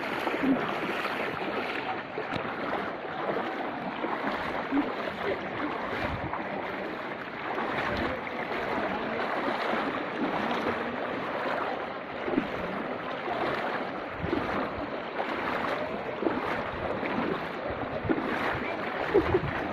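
Floodwater rushing past in a steady flow, a continuous churning roar with small irregular surges.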